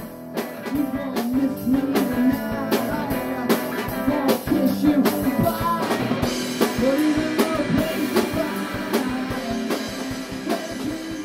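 Background music: a song with a steady drum beat and guitar.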